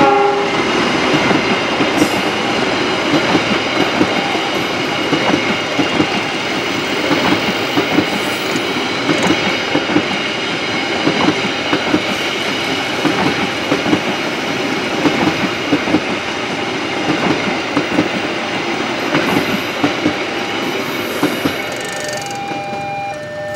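Passenger carriages of a diesel-hauled KAI train rolling past close by, wheels clattering over the rail joints in an irregular clickety-clack. The clatter fades as the last car clears near the end.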